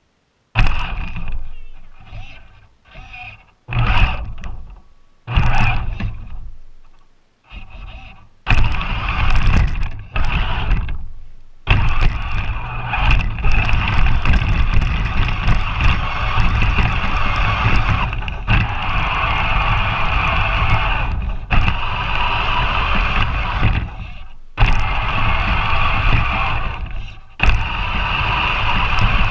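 Battery-powered RC 4x4 truck's electric motor and gears whining as it drives through deep snow, heard from a camera mounted on the truck. Several short throttle bursts in the first eight seconds, then longer runs broken by brief pauses.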